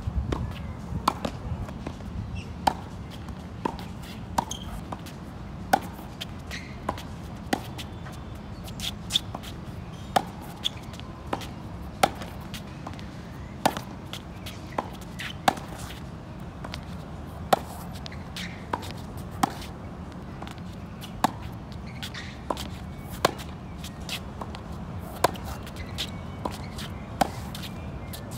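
Tennis balls struck by racquets and bouncing on a hard court during a baseline rally: sharp pops about once a second, the loudest strikes coming about every two seconds, over a steady low hum.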